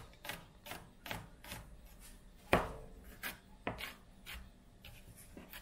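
Kitchen knife chopping garlic cloves on a plastic cutting board: a run of uneven knocks, two or three a second, with one harder knock about halfway through.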